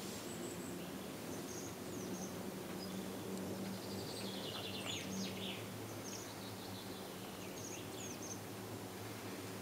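Steady low hum of a cable car ride, with short high chirps and squeaks scattered over it and one longer falling squeak in the middle.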